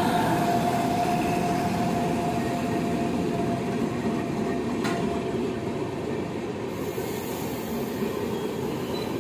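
Indian Railways express train passing close by behind an electric locomotive: a steady rumble of the coaches rolling over the rails. A thin steady whine fades out over the first few seconds, and a single sharp click comes about five seconds in.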